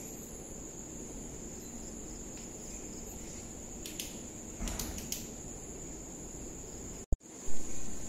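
Steady high-pitched chirring of crickets, with a few faint clicks midway. About seven seconds in the sound drops out for an instant, then comes a sudden loud, low thump, the loudest thing here.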